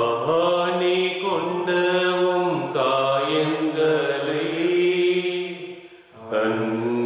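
A solo voice singing a slow, chant-like hymn refrain in long held notes, with a short breath break about six seconds in.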